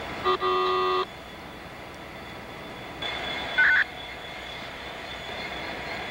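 A diesel locomotive air horn sounds one short, steady toot of under a second, about a quarter second in. A shorter, higher tone follows about three and a half seconds in, over steady background noise.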